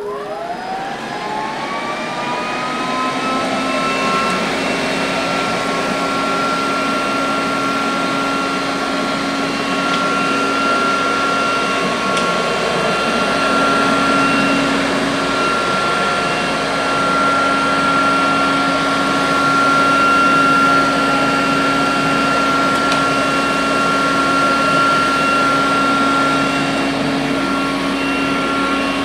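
Electrolux robot vacuum cleaner's motor starting up, its whine rising in pitch over the first few seconds, then running steadily with a high whine over a low hum.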